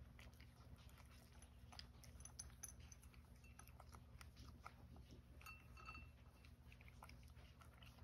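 A cat crunching dry kibble: faint, irregular crunches and clicks over a low, steady hum.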